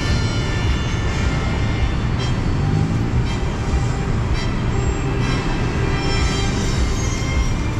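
Light-and-sound show soundtrack played loud over speakers: a dense, steady mechanical rumble with music underneath.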